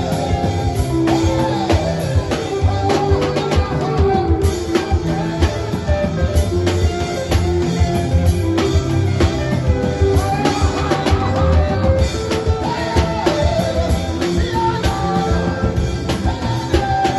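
Lively gospel praise music with a steady drum beat, guitar and singing.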